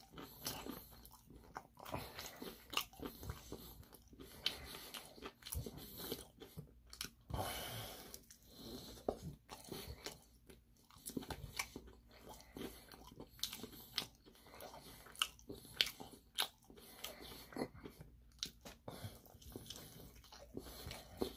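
Close-up eating of Korean fried chicken: crisp crunching bites and chewing, with many short sharp crunches scattered irregularly throughout.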